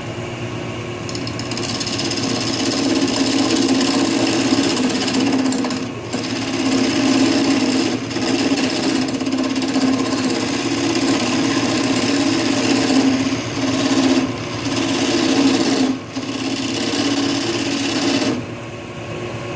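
Oliver wood lathe running while a hand-held turning tool cuts details into the spinning wood blank. The rough, chattering cut starts about a second in and breaks off briefly a few times as the tool comes off the wood, over the lathe motor's steady hum.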